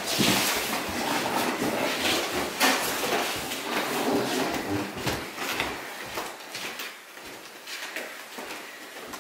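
Bare feet and bodies thudding, sliding and scuffing on a wooden plank floor in irregular knocks and rubs. The knocks thin out and grow quieter over the last two seconds as the movement stops.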